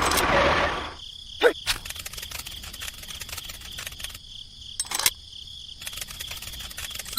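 A motor or engine sound that stops about a second in, followed by steady high-pitched insect chirping with scattered clicks.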